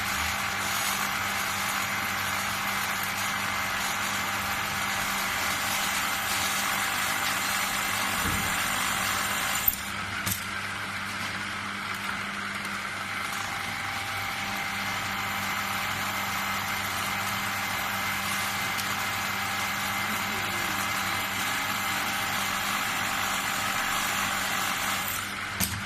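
Electric drill bit sharpener's motor running steadily, a constant hum with a hiss over it. A sharp click about ten seconds in and another near the end.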